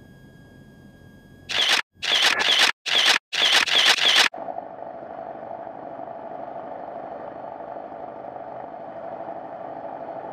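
A run of loud noisy blasts chopped off by sudden dropouts about a second and a half in, then the Cessna 150's four-cylinder Continental engine and propeller running steadily on the runway, heard from inside the cabin.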